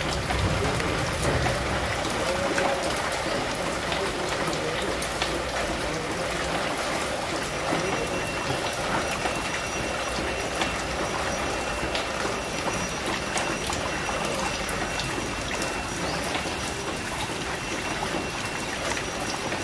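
Steady rain falling on leaves and puddled ground: an even hiss with scattered sharper drop hits.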